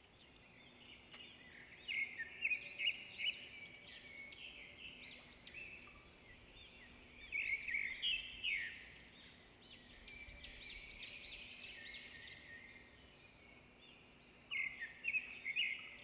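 Small birds chirping, with many short calls overlapping. The chirping grows busier in clusters about two, eight and fifteen seconds in, over a faint steady background hum.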